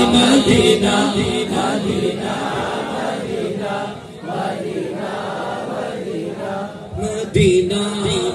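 Male naat reciter singing through a public-address system, with many voices chanting along in a group refrain. The sound gets louder and fuller about seven seconds in.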